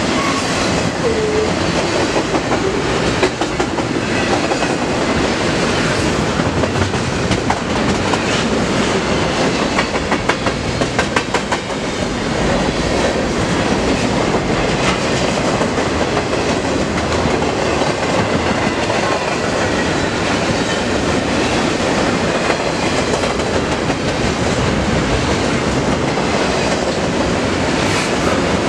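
Double-stack intermodal freight train rolling past: steady noise of steel wheels on the rails, with a quick run of wheel clicks about ten seconds in.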